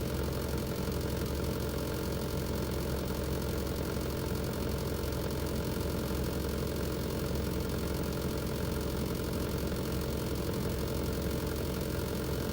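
Outdoor unit of a Panasonic LX-series split air conditioner running, a steady hum with an abnormal noise in it that the unit has had since new.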